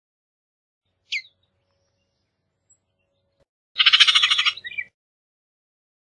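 Bullock's oriole calling: one short downslurred note about a second in, then a harsh, rapid chatter lasting about a second.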